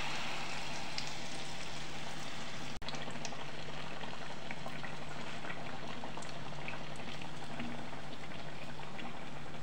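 Malpua batter frying in hot ghee: a steady sizzle with scattered small pops and crackles. It cuts out for an instant about three seconds in.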